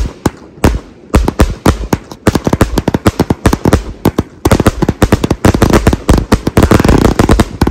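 A 100-shot Blue Nishiki compound fireworks cake firing: a rapid string of sharp bangs from the shots lifting and breaking, which grows denser and faster about four and a half seconds in.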